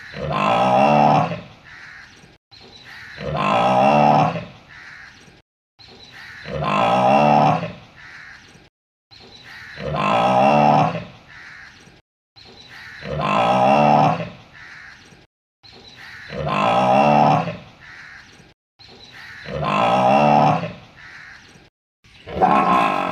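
Cow mooing, one deep drawn-out moo about every three seconds, each the same call repeated. Near the end a different, longer moo begins.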